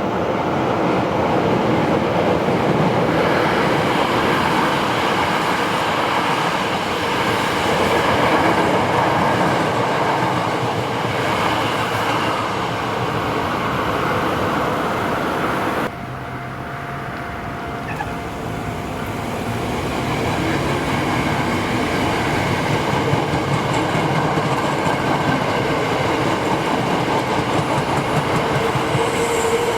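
Hankyu Kyoto Line electric trains running past a level crossing, their wheels clattering over the rails. The sound drops off abruptly about halfway through, then a train's running noise builds up again.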